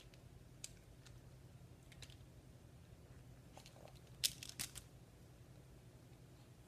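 Faint clicks and crunches of a toy being chewed, with a quick cluster of sharp clicks about four seconds in, the loudest of them.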